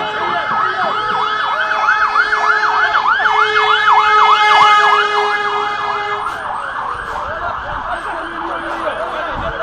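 Fire engine siren on a rapid yelp, sweeping up and down several times a second. It is loudest about two thirds of the way through, then grows fainter and blurred.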